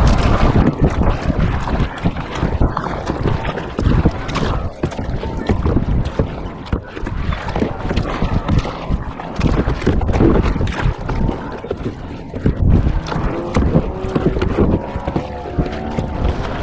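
Wind buffeting the microphone, with water splashing and sloshing around a kayak as it is paddled out from the beach. The noise comes and goes unevenly throughout.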